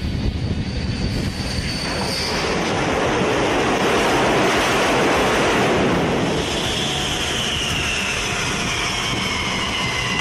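A loud rushing roar that swells over a couple of seconds and eases a little, with a whine gliding steadily down in pitch through the second half, as a vehicle or aircraft passes.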